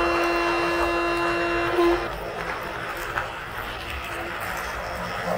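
Train horn blown once as a steady single note, stopping sharply about two seconds in, over the continuous running rumble of a passing train.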